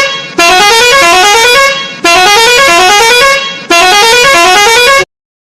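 Electronic DJ siren effect played loud through a sound system: a tone that rises in pitch over about a second and a half, repeated three times in quick succession, then cutting off abruptly about five seconds in.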